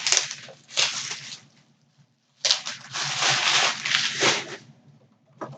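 Packaging rustling and crinkling as a boxed vinyl Pop figure is handled and unwrapped: a short spell of rustling, then a longer one of about two seconds.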